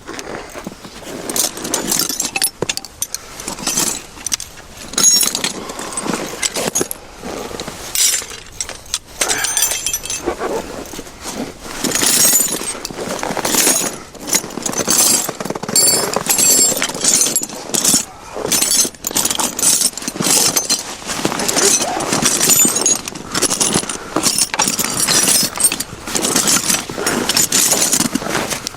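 Searching sound effect: someone rummaging through objects, with continual irregular clattering, clinking and rustling.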